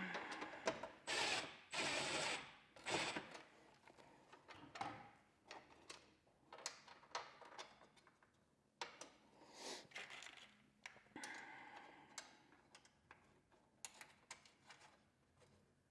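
Tools and screws being handled while fastening screws into a floorboard: a few short scraping bursts in the first three seconds and again after about nine seconds, with scattered light clicks and rattles between.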